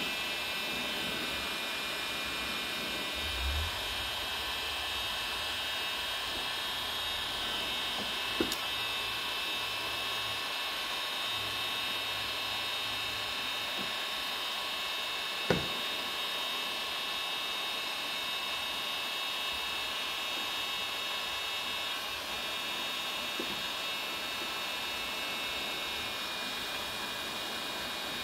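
Electric heat gun running steadily, its fan blowing with a constant hiss and whine as it is held on a cracked plastic bumper to soften it. Two sharp taps cut in, the louder one about halfway through.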